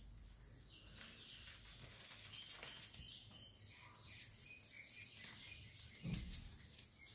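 Newspaper crinkling and rustling under a pug puppy's paws as it scrambles about, with a few faint high chirps in the middle and a soft thump about six seconds in.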